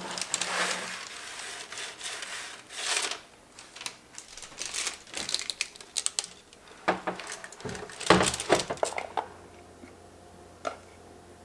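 Parchment paper crinkling and rustling as it is handled on a baking sheet, with scattered sharp clicks and knocks. It dies down near the end, leaving a faint hum and one light click.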